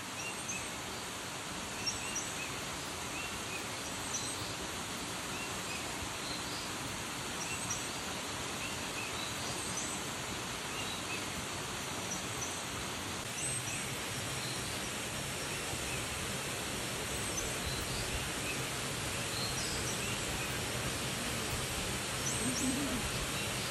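Forest ambience: a steady, even hiss of background noise with short, high chirping calls recurring every second or two.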